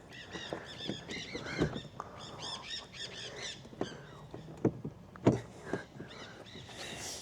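A songbird sings a quick run of repeated chirps in the first half. Several sharp knocks and clicks of metal hardware being handled cut through it, the loudest about five seconds in.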